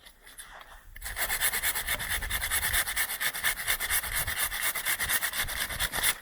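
Hand saw cutting through wood with quick, even back-and-forth strokes. The sawing starts abruptly about a second in and stops suddenly near the end.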